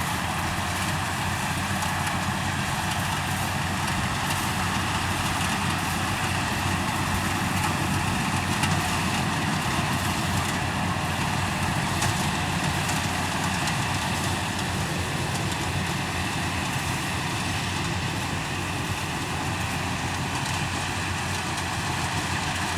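Yanmar combine harvester running steadily, a continuous drone of engine and machinery with faint steady whining tones above it.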